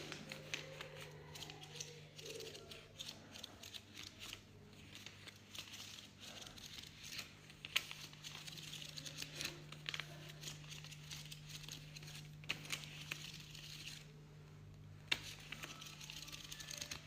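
Paper banknotes rustling and crinkling with irregular crisp snaps as they are handled and counted, over a low steady hum.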